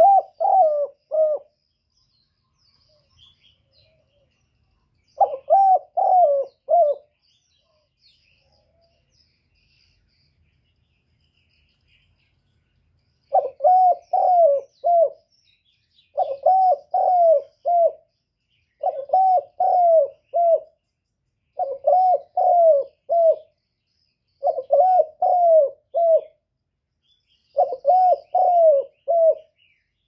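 Spotted dove cooing: a low phrase of about four coos, given eight times. After the first two phrases there is a pause of several seconds, and from then on the phrases come about every three seconds. Faint chirps of small birds sound behind it.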